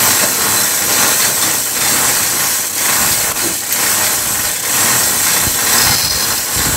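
Steady, loud running-machinery noise with a strong hiss, like an engine running nearby.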